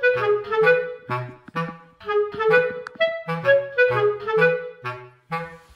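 Light, bouncy background music: a clarinet-like woodwind melody in short, detached notes over a bass line that moves in step with it.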